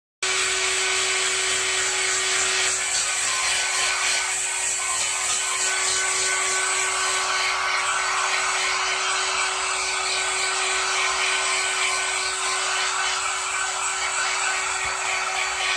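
Electric hair dryer running steadily, a constant hiss of blowing air with a steady motor hum; it switches in abruptly at the very start.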